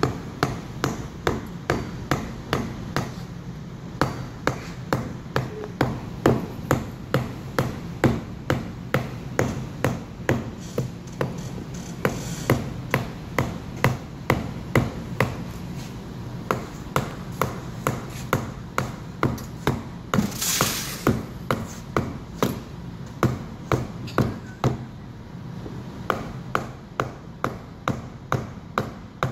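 Hand mallet striking the metal pivot rod of a car sun visor in steady blows, about two a second with a few short pauses, each with a light metallic ping. A brief hiss comes about two-thirds of the way through, over a steady low hum.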